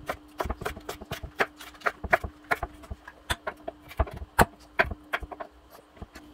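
Chef's knife dicing onion on a wooden cutting board: quick, irregular taps of the blade on the board, several a second, thinning out near the end. A faint steady hum runs underneath.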